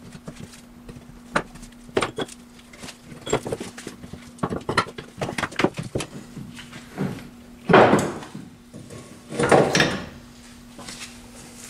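Metal clanks and knocks as the front hub and brake assembly of a 2012 Volkswagen Golf R is pulled outward and the CV axle's splined outer end is worked free of the hub, with two louder scraping slides near the end as the axle comes out. A faint steady hum sits underneath.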